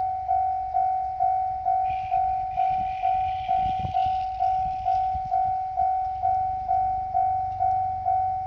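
Japanese railway level-crossing warning bell ringing, an electronic 'kan-kan' tone struck about twice a second, each strike fading. Under it runs the low rumble of a passing diesel train, with a few knocks about four seconds in and a hissing squeal between about two and five seconds in.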